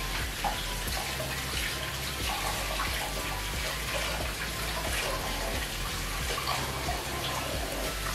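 Sel roti, rings of rice-flour batter, deep-frying in a small pan of hot oil, with a steady sizzling hiss.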